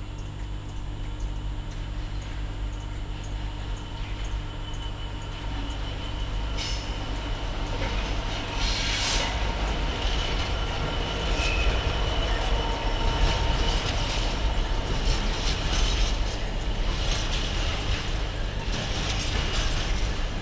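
A train running on the line: a steady low engine hum at first, then rising rail and wheel noise with scattered clicks from about six seconds in, and a short high screech about nine seconds in.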